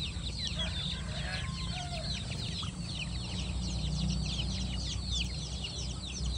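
A flock of young KUB kampung chickens peeping constantly, many short falling peeps overlapping, with a few lower clucks in the first couple of seconds.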